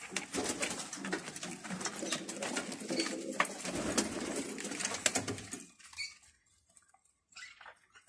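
Domestic pigeons cooing in the loft cages, mixed with scratchy rustling and clicks. The sound falls away almost to silence about six seconds in.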